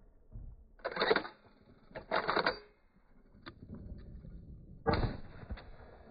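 Metal clacks and clicks of a Dickinson Marine 12-gauge pump-action shotgun's action being handled between shots: a clack about a second in, a double clack about two seconds in, and another just before the end, with sharper single clicks between.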